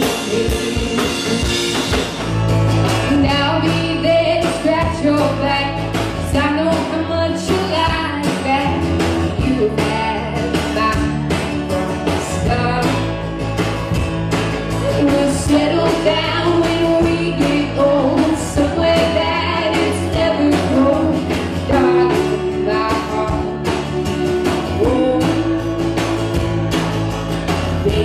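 Live rock band music: electric guitar, bass and drums playing a steady beat.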